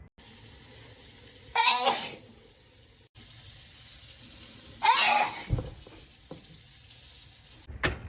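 A person sneezing twice, about three seconds apart, each a short loud sneeze falling in pitch, over a steady background hiss.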